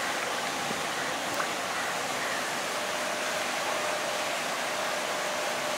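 Steady rushing noise of pool water, with a faint steady hum coming in about halfway through.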